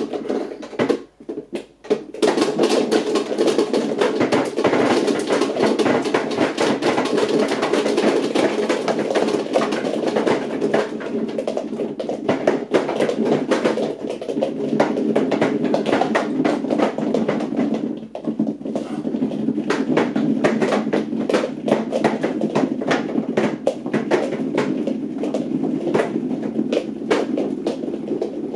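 Nerf Rival foam rounds pouring by the hundreds into a tall clear plastic hopper. They make a dense, continuous rattle of many small impacts. A few scattered knocks come first, then the steady rattle starts about two seconds in and eases briefly about two-thirds of the way through.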